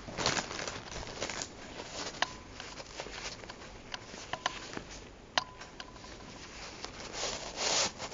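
Hands handling a folded travel umbrella in its fabric sleeve: soft rustling of the fabric as it slides and is gripped, louder at the start and just before the end, with a few sharp clicks along the way.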